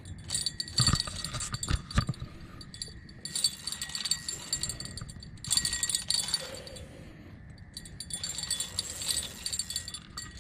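Light metallic clinks and knocks of fishing gear against a metal boat, with two sharper knocks about one and two seconds in, over a faint steady high tone.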